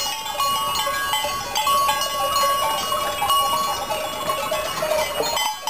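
Many bells on a flock of sheep on the move, clanking and ringing together in a dense jangle, with occasional sheep bleats.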